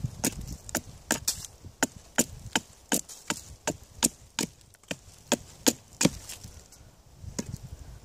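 Hatchet blade striking down a resinous fatwood stick stood on a log, knocking off shavings to get at the resin-rich heart wood: about twenty sharp wooden chops at roughly three a second, stopping about six seconds in.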